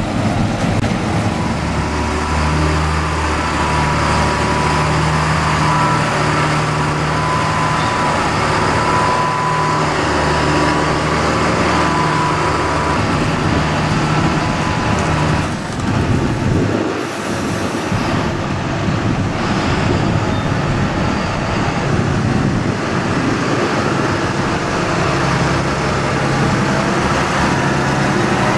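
Large farm tractors' diesel engines running steadily under load as they pull loaded silage trailers, with a high steady whine over the first half. The sound changes abruptly about two-thirds of the way through.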